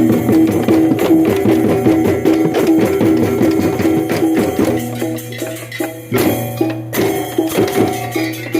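Balinese tektekan ensemble playing: many bamboo slit drums struck in a fast interlocking rhythm, with a ringing pitched note repeated over and over and a bright jingling on top.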